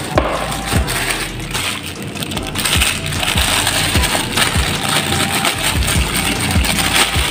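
Clear plastic packaging bag crinkling and rustling as it is handled by hand, with many small irregular crackles.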